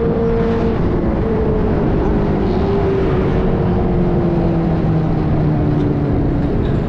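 Benelli TNT600's inline-four engine running on the move, its drone falling slowly in pitch as the throttle eases off, over a dense rush of wind and road noise.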